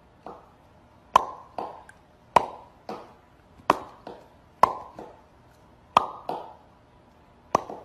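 A string of about a dozen short, hollow plopping 'bloop' sounds, like water drops, coming at uneven intervals of half a second to a second, each with a brief ring at about the same pitch.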